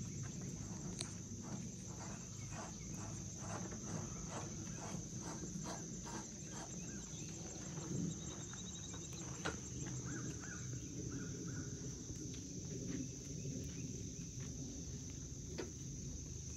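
A steady high-pitched chorus of insects, with faint regular footsteps on dirt during the first several seconds.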